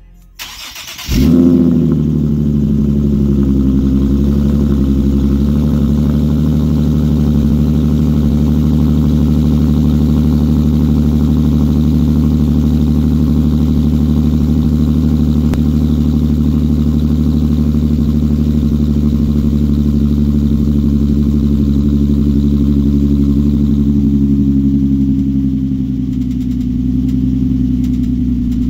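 Nissan 370Z's VQ37HR V6 cold-starting through a Motordyne Shockwave cat-back exhaust. It catches about a second in with a brief flare of revs that settles over a few seconds into a steady, loud, deep fast idle, which eases down slightly near the end.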